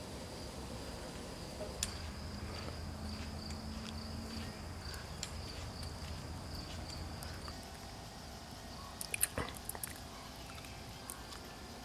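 Outdoor ambience with an insect's steady high-pitched buzz that stops about two-thirds of the way through, with scattered faint clicks and a short cluster of sharper clicks near the end.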